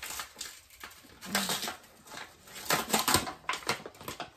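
Paper bag of whole wheat flour being unfolded and pulled open by hand: irregular crinkling and crackling of stiff paper, in several short flurries.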